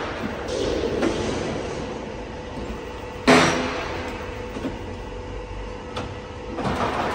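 Stanko 7A420 vertical slotting machine running with a steady mechanical hum and a few light knocks, and one loud metallic clunk about three seconds in as its speed lever is shifted to raise the stroke rate.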